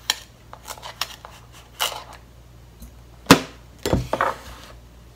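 Metal spoon scraping and clicking in a plastic container of sugar, with one sharp click about three seconds in, then the plastic container set down on the counter with a low knock.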